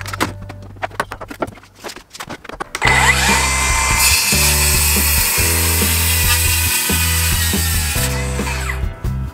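Milwaukee Fuel cordless circular saw cutting through an old rough-sawn timber beam, its motor whining under the blade noise. The cut starts about three seconds in, and the saw winds down just before the end. Background music plays underneath.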